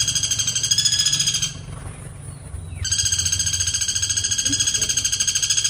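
Woodpecker calling in long, very rapid, even trills: one breaks off about a second and a half in, and after a short pause another starts and runs on. A steady low hum lies beneath.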